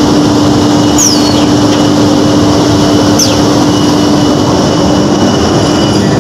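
Plywood double sizer machine running loudly and steadily, a constant low hum over a dense mechanical noise. Two brief high whistles fall in pitch, about a second in and again about three seconds in.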